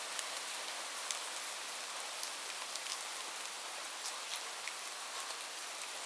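Light rain falling: a steady soft hiss with scattered individual drops ticking.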